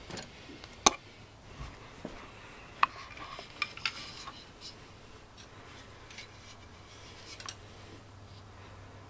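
Hands handling a 1/200-scale model airliner: scattered sharp clicks and taps, the loudest about a second in, with light rubbing between them.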